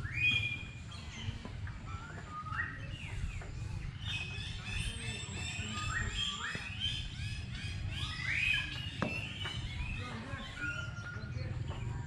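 Many small birds chirping and whistling, short bright calls overlapping one another, over a steady low rumble.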